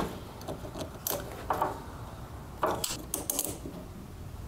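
Pliers squeezing a spring hose clamp and working it onto a rubber fuel line at a plastic inline fuel filter. It makes a handful of short metallic clicks and rattles, about a second in and again around three seconds.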